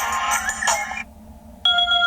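Ringtones playing on a Toscido X109: a busy chiming ringtone lasts about a second and stops. A different ringtone with a steady electronic tone begins near the end.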